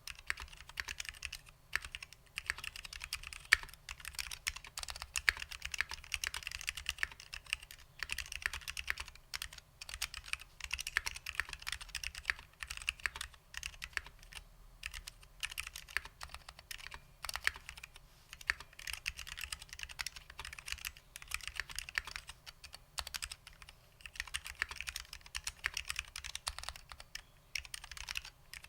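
Continuous fast typing on a Bakeneko60 custom keyboard with lubed SKCL Green Alps switches and vintage doubleshot keycaps: dense runs of sharp clicky keystrokes, broken by a few brief pauses.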